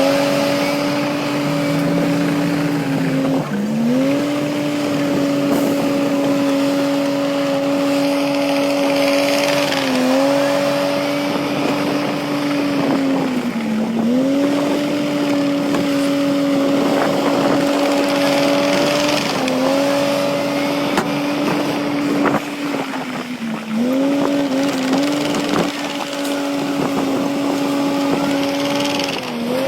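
Heavy earthmoving machine running continuously with a steady high whine over a diesel rumble. The pitch sags briefly and recovers every few seconds as the machine takes load.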